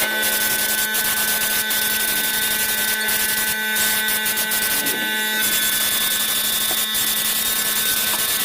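A motor-driven machine running steadily, a constant whirring noise with a steady hum, briefly dipping a few times.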